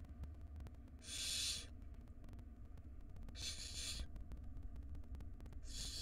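Barn owl nestlings giving rasping, hissing food-begging calls as the female feeds them. There are three calls of about half a second each, roughly two and a half seconds apart.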